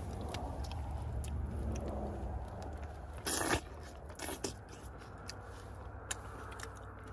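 Rustling and handling noise, then a sharp bite into a tomato about three seconds in, a smaller second bite about a second later, and chewing.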